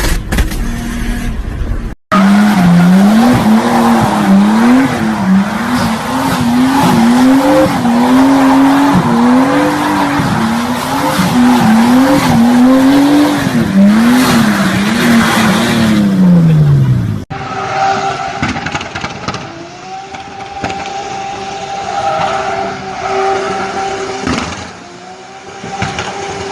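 Turbocharged car engine revved hard, its pitch swinging up and down about once a second, with tyres squealing in a loud hiss underneath. After about fifteen seconds it cuts to a quieter, steadier engine sound holding a constant tone.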